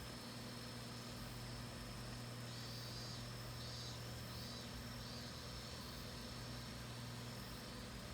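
Cicadas calling: a steady high drone with a pulsing phrase that repeats about every second. Under it runs the steady low hum of an idling car engine.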